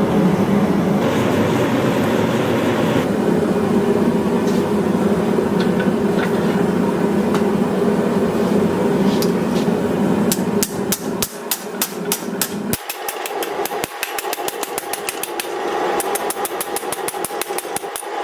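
The forge runs with a steady rushing noise. About ten seconds in, a hammer starts striking hot mild steel bar on the anvil, quick, even blows several times a second, with a faint ring between them, as the bar is forged into a door handle.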